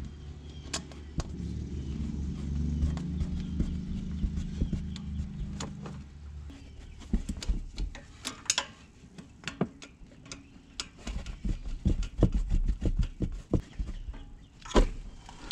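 Small metal clicks and taps of a hand tool and throttle cable being worked at a carburetor's cable bracket, scattered irregularly through the second half. A steady low hum fills the first six seconds or so, then fades.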